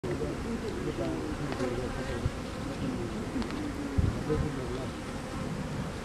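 Many honeybees buzzing around the entrances of wooden hive boxes, a dense hum of overlapping, wavering tones. A brief low thump about four seconds in.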